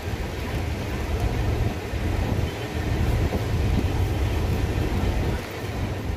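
Passenger train running along the line, heard from aboard a third-class carriage: a steady rumble of wheels and carriage with rattling noise over it.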